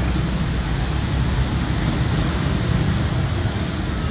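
Steady traffic noise from cars on a rain-wet road: a continuous hiss with a low rumble underneath.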